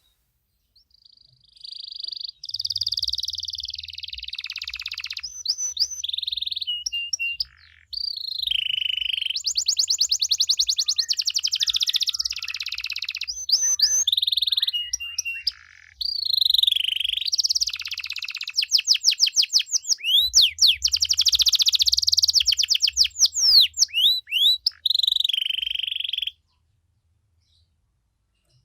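Domestic canary singing a long, varied song of rapid trills, sweeping whistled glides and held notes, with hardly a pause for about 25 seconds. The song stops abruptly near the end.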